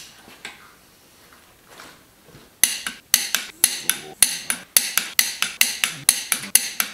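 Torque wrench ratcheting head-stud nuts down on a diesel cylinder head: after a couple of quiet seconds of handling, a steady run of sharp metallic ratchet clicks, about two to three a second.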